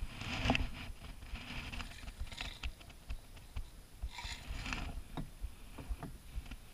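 Kayak paddle strokes, the blades dipping and swishing through the water several times a second or two apart, with low bumps and rumble underneath, all muffled through an enclosed waterproof camera housing.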